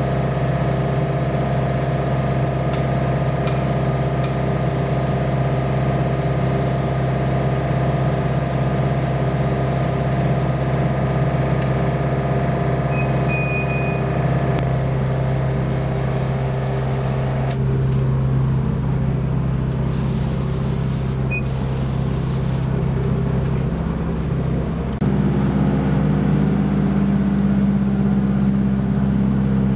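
Gravity-feed air spray gun hissing in long bursts that stop and start, with a few sharp clicks, over a steady machine hum that drops lower near the end.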